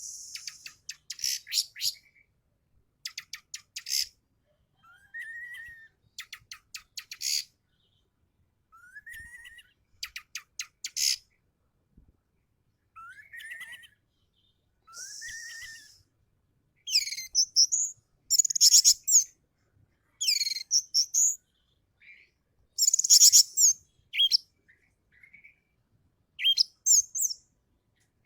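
Orange-headed thrush (anis merah) singing: short separate phrases of rapid rattling notes and rising whistled notes with brief pauses between them. The phrases grow louder and more varied in the second half.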